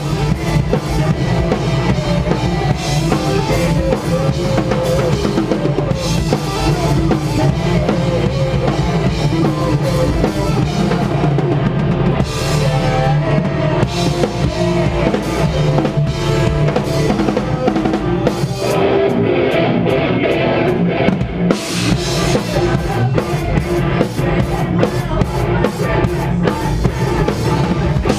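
Heavy post-hardcore band playing live and loud, a drum kit pounding steadily under the band. About two-thirds through the cymbals drop away for a couple of seconds, then fast, even drum hits come back in.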